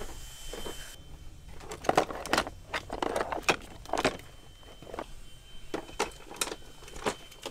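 Hand tools clinking and clattering as someone rummages through a tool case, a quick irregular run of sharp metallic knocks.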